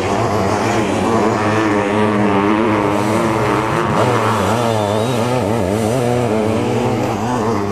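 Sidecar motocross outfit's engine revving hard under load, its pitch rising and falling again and again as the throttle is worked.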